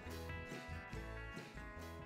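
Background music: a country-style tune with guitar over a steady, repeating bass line.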